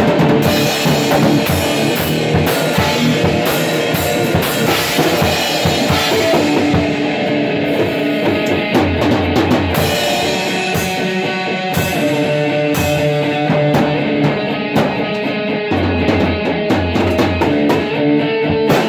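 Loud rock jam: an electric guitar played through an amplifier over a driving drum-kit beat with bass drum and snare.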